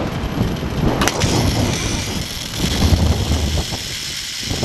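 Zipline trolley running along the steel cable with wind buffeting the microphone, the rider slowing from about 40 to 20 mph into the landing station; a sharp click about a second in.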